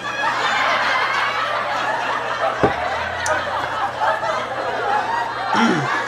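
Continuous laughter and chuckling, with a single sharp knock about two and a half seconds in.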